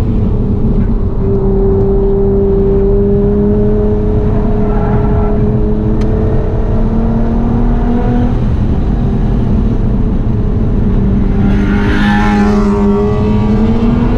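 Nissan GT-R R35's twin-turbo V6 with a full aftermarket exhaust running under load at fairly steady revs, its note drifting slowly up and down. A brief rush of hiss comes about twelve seconds in.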